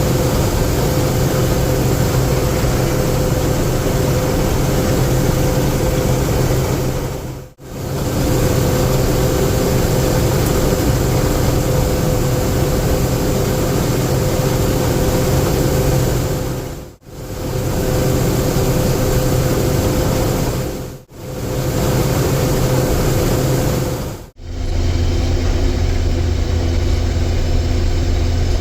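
Combine harvester running steadily while harvesting soybeans, a continuous machine drone with a steady hum. It cuts out briefly four times, and after the last break, near the end, it turns to a lower, deeper hum.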